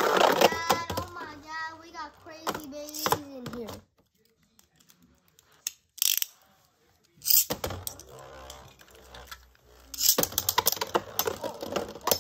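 Beyblade spinning tops clicking and clattering against the plastic stadium, with a wordless voice in the first few seconds. Then a silent gap, and from about ten seconds in, rapid dense clattering as two tops spin and collide in the stadium.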